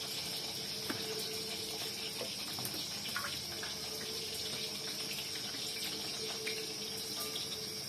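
Cassava pieces frying in hot oil in a wok: a steady sizzle, with a few faint clicks.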